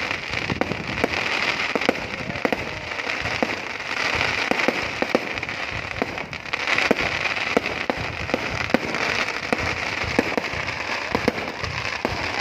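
Aerial fireworks display going off continuously: a dense crackling hiss with many sharp bangs at uneven intervals, often several a second.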